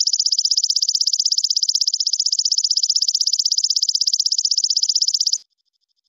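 Belalang kecek (walang kecek) insect singing: a loud, high-pitched chirring made of rapid even pulses, about a dozen a second, that stops abruptly about five seconds in.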